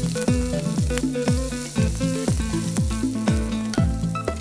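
Onions sizzling in hot coconut oil in a frying pan, stirred with a wooden spatula. Background music with a steady beat of deep falling thumps about twice a second plays over it.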